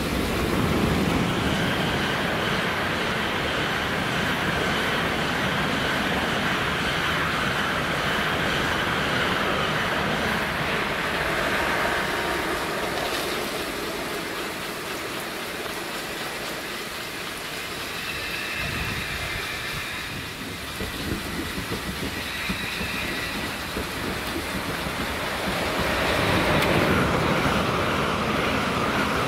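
Shinkansen bullet trains running through the station at speed: a steady rush of air and steel wheels on rail, mixed with the spray of trackside snow-melting sprinklers. The noise eases in the middle and swells again near the end as the next train, a 700-series Nozomi, comes through.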